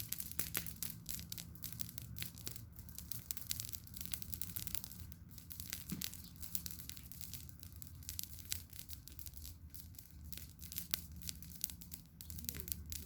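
Campfire crackling: burning wood giving off many irregular sharp pops and snaps over a steady low background noise.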